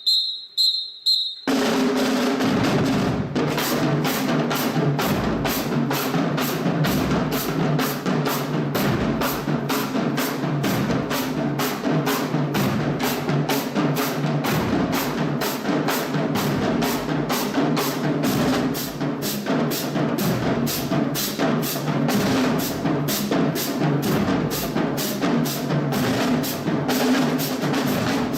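A few sharp clicks, then a drum section of snare and bass drums comes in about a second and a half in and plays a steady, fast cadence.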